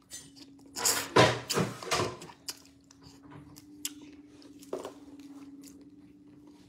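Close-up eating sounds: chewing and sucking on pieces of seafood, with a burst of louder mouth noises about a second in, then scattered small clicks as fingers pick the seafood apart.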